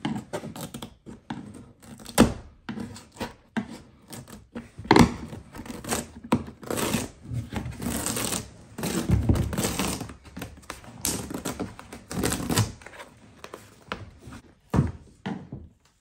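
Screwdriver and utility-knife prying and scraping against a plastic kayak deck, clicking and knocking irregularly, while the old foam deck matting is peeled up off its adhesive.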